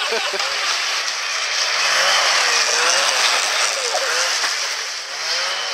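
Snowmobile engine running as it tows a sled across the snow. Its note wavers up and down.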